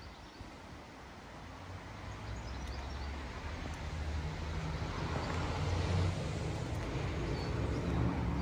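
Low rumble of a motor vehicle passing on a nearby road, growing louder through the second half under a steady outdoor background hiss.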